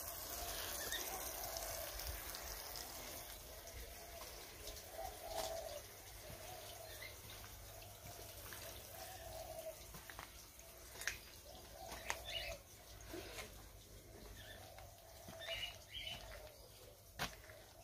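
Faint garden ambience: birds chirp now and then over a low, uneven trickle of water running along a plastic channel drain, with a few light clicks.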